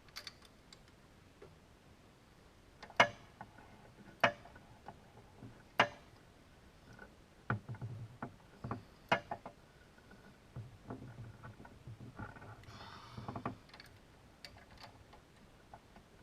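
Metal hand tools knocking and clinking against metal parts in a car's engine bay, with a handful of sharp clanks spread over several seconds and softer rattling and handling noise in between.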